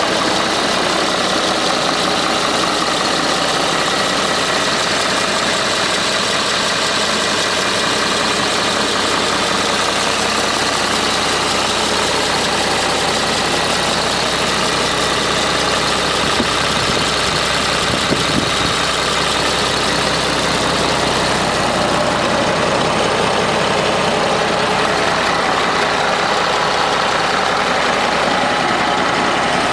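A large tractor's diesel engine idling steadily, heard up close at the open engine bay.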